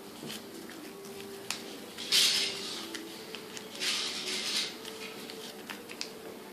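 Sheet of paper being folded and creased by hand: two short papery rustles about two seconds apart, after a single sharp tick.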